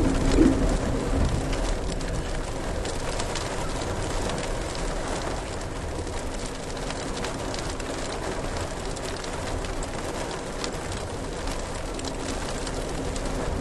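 Heavy rain pelting a moving passenger train's window, a dense patter of drops over the steady running noise of the train, heard from inside the car. It is a little louder in the first second.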